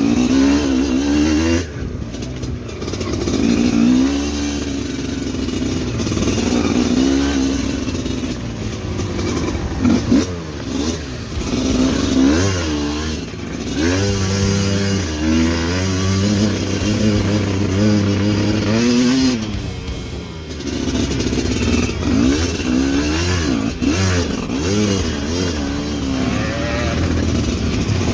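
Motorcycle engine revving up and down over and over, pitch rising and falling every second or two, as the bike climbs a rocky, slippery off-road track.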